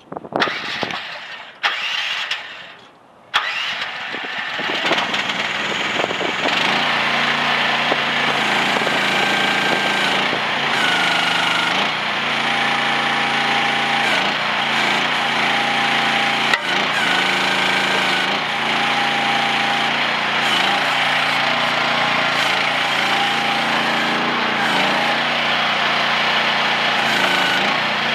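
Mini excavator's diesel engine being cranked and started: a few short bursts in the first three seconds, then it catches and runs steadily. From about ten seconds in, higher whining tones come and go over the engine.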